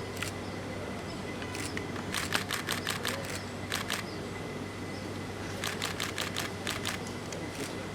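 Camera shutters firing in rapid bursts, about seven clicks a second: one run of clicks lasting over a second, a quick pair, then another run of about the same length, over a steady background hum.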